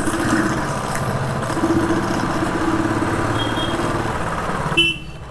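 Motorcycle engine running steadily at low riding speed. A short high beep sounds near the end, and the engine sound drops off sharply just before the end.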